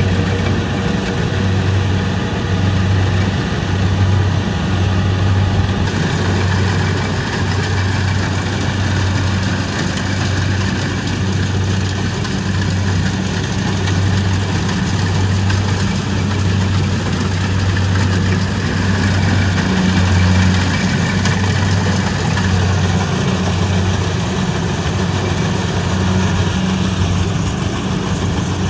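Kubota rice combine harvester's diesel engine running steadily, a low hum that wavers slightly in level, under a continuous mechanical rush from the machine.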